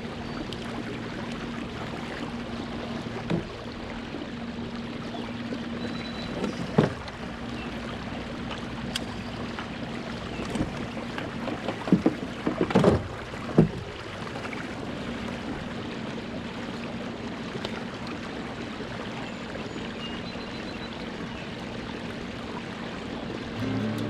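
Kayak under way on an electric trolling motor: a steady low hum over water and wind noise. A few sharp knocks come about seven seconds in and again around twelve to fourteen seconds.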